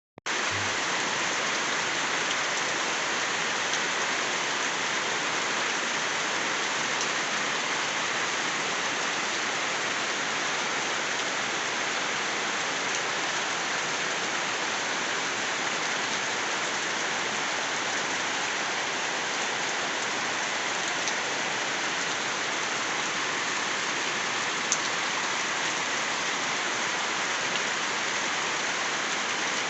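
Steady rain falling: an even, unbroken hiss with a few single drop ticks standing out now and then.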